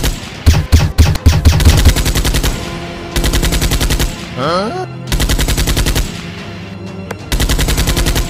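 Machine-gun fire sound effects: several bursts of rapid automatic fire with short gaps between them, and a brief rising whine about four and a half seconds in.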